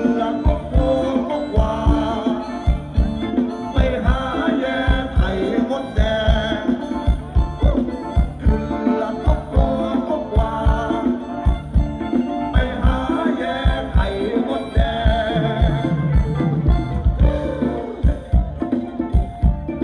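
Live band playing a Thai ramwong dance song through a PA, with a steady drum beat under the melody.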